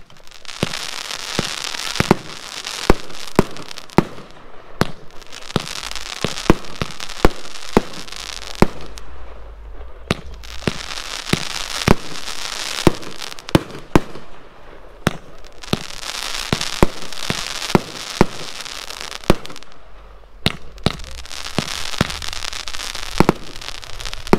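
A 500-gram consumer fireworks cake (BIG Fireworks' "Committed") firing shot after shot: sharp launch and burst bangs, often about one a second, over a dense crackling hiss. It comes in volleys with a few brief lulls.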